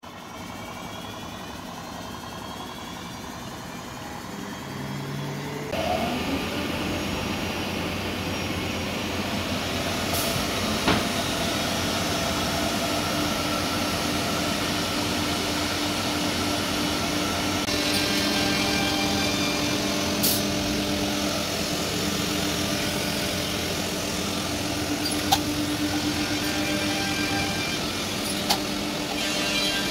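1325 multi-spindle CNC router cutting a cabinet board: a steady mechanical drone with a few held tones. It is quieter at first and louder from about six seconds in, with a few sharp clicks scattered through it.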